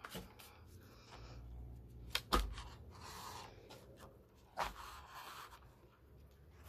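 Paper rustling and scraping as a sewn journal signature is handled and long twine is drawn through its stitching holes, with a few sharp knocks against the tabletop, the loudest about two seconds in and another near the middle.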